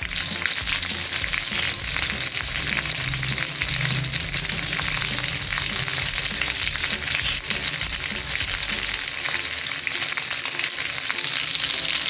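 Spinach-and-potato cutlets shallow-frying in hot oil in a pan: a steady, even sizzle.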